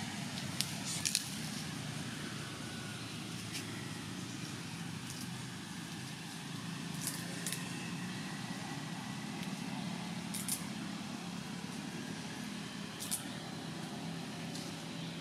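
Steady low mechanical hum, with about eight sharp clicks scattered through, a cluster of them about a second in.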